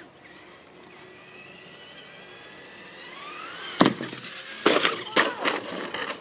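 Traxxas Slash RC truck accelerating, its motor whine climbing steadily in pitch, then a sharp loud knock and, about a second later, two more clattering impacts as the truck hits the ramp, jumps and lands.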